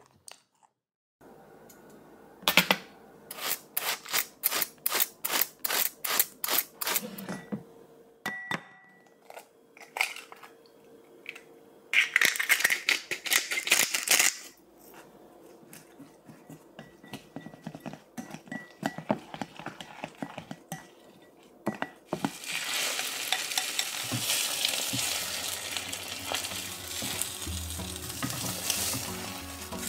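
Kitchen prep sounds: a run of sharp knocks about two a second, a grinding rasp as salt and pepper go on the egg and shredded cabbage, then light clinks of mixing. From about two-thirds of the way in, steady sizzling as the egg-and-cabbage batter fries in a rectangular pan.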